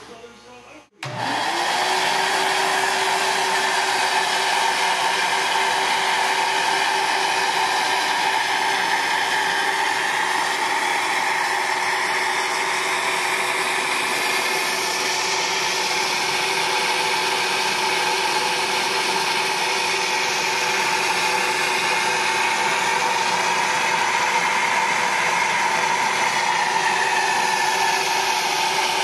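SuperFlow SF-600 flow bench switching on about a second in, its blower motors spinning up to a loud, steady whine and rush of air drawn through a cylinder head's exhaust port during a flow test.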